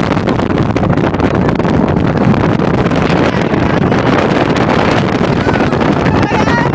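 Strong, steady wind buffeting the microphone, the rush of air from travelling in a moving vehicle.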